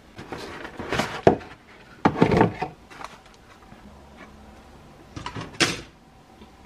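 Plastic model-kit sprues and the cardboard kit box being handled: three short bursts of rustling and clattering, with sharp knocks of plastic against cardboard.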